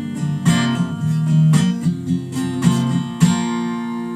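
Acoustic guitar strumming, ending on a last chord a little past three seconds in that is left to ring out and fade.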